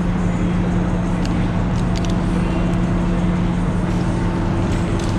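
Steady machinery drone with a constant low hum, with a few faint clicks over it.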